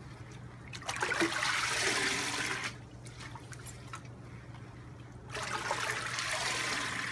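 Water sloshing, splashing and streaming in a plastic barrel as a mesh bag of compost is dunked and lifted, in two spells: about a second in, and again in the last couple of seconds.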